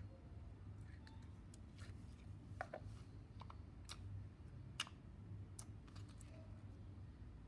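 Faint, scattered clicks and small pops from soft slime being stretched and squished by hand, about a dozen irregular ticks over a steady low hum.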